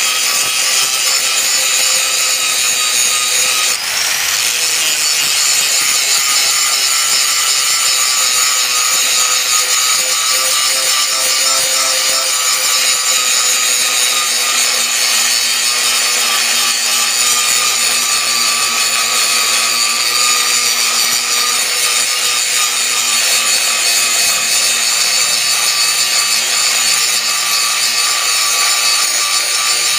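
Corded angle grinder with an abrasive disc grinding the steel blade of a bowie knife: a steady high motor whine over the hiss of the disc on steel. It eases off briefly about four seconds in.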